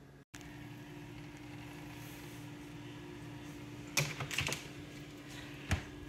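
Steady low appliance hum, then a few knocks about four seconds in and a single thump near the end as the chest freezer's lid is closed.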